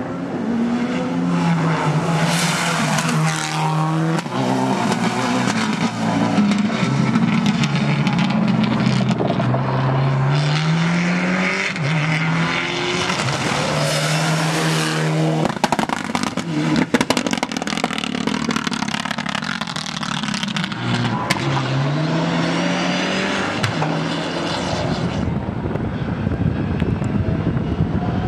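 Mitsubishi Lancer Evolution rally cars at full throttle, engines revving up in steps through quick gear changes, pass after pass.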